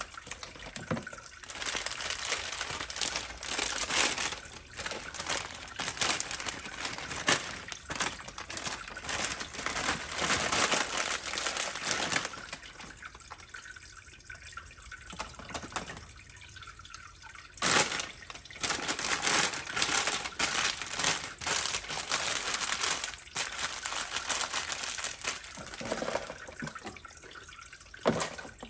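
Water splashing and trickling unevenly, with many small splashes and drips. It drops quieter for a few seconds around the middle, and then a sudden louder splash comes in.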